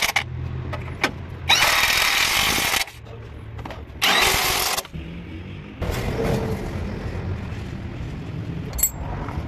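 Corded electric impact wrench running in short bursts on a tractor bolt: one ending just as it starts, a longer one of over a second about a second and a half in, and a shorter one about four seconds in. A low rumble follows in the second half, with a sharp click near the end.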